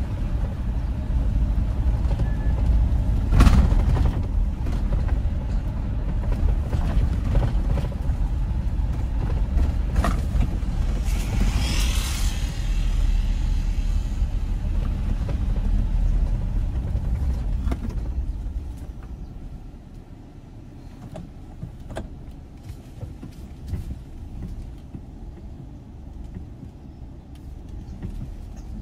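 Car driving, a steady low rumble of engine and road noise that drops away about eighteen seconds in. A few sharp knocks and a brief hiss near the middle.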